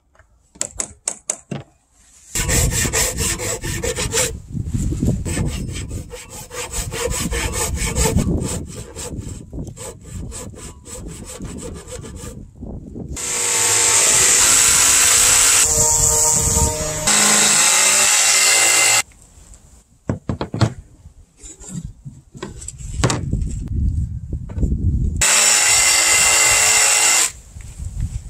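Makita 18V cordless jigsaw cutting curves in a wooden board, the blade chattering rapidly through the wood. It runs in several long stretches with short stops and brief starts between them.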